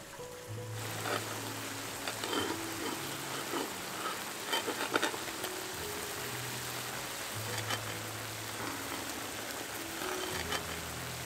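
Soft background music of slow, held notes, over a steady hiss with scattered small crackles that begins under a second in.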